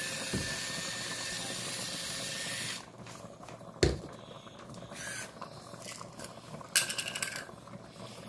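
Boiling soup in a multi cooker gives a steady hiss with a faint high whine, which drops away abruptly under three seconds in. About four seconds in there is a single sharp knock, and near the end a short burst of rapid clicking from a pepper grinder being turned over the pot.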